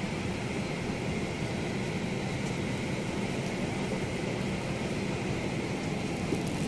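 Steady hiss and low hum of an airliner cabin's air-conditioning ventilation, with the aircraft on the ground during boarding.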